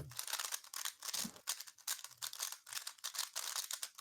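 A 3x3 speedcube being turned very fast: a dense, rapid clatter of plastic layer clicks.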